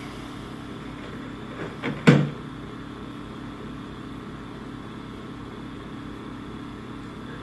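Steady low hum, with three quick knocks about two seconds in, the third the loudest.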